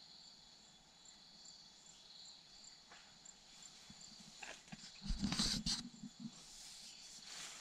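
Footsteps crunching and rustling through dry bamboo leaves and stalks, starting about four seconds in and loudest a second later, over a steady high chirring of insects.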